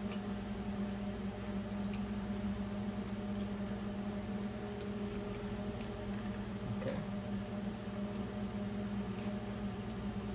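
Steady low hum throughout, with scattered light clicks and ticks of small metal locking-hub parts being handled.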